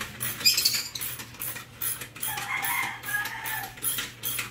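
Ratchet wrench clicking in quick repeated strokes, about four clicks a second, on the rear shock absorber mounting bolt of a Yamaha Aerox scooter. A rooster crows once in the background about two seconds in.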